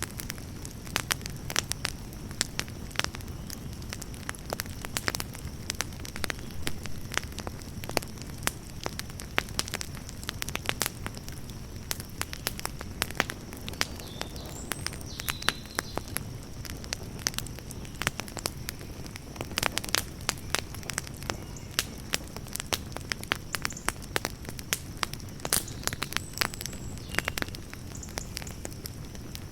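Campfire burning: a steady low rush of flames with frequent sharp crackles and pops from the burning wood.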